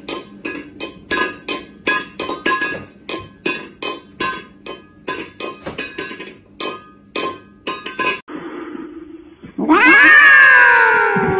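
A cat batting an empty stainless-steel food bowl on a hard floor with its paw, a run of short clanks about four a second with a faint metallic ring. Near the end a cat yowls loudly into a microphone, one long call that sweeps up in pitch and comes down again.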